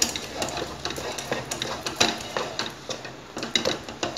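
Spoon scraping and clinking against a metal pan as thick, sticky rice-flour dough is stirred and pressed around it, with irregular clicks a few times a second.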